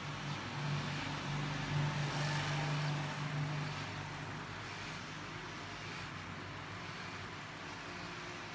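Electric hair clippers buzzing steadily while cutting hair at the nape of the neck. The buzz is strongest for the first few seconds, then fainter.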